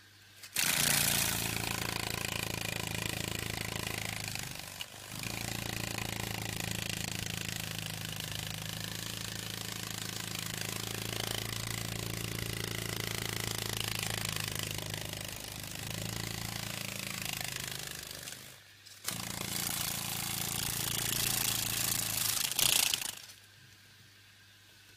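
A large insect buzzing with its wings: a loud, steady, low buzz that throbs like a helicopter. It breaks off briefly twice and stops near the end.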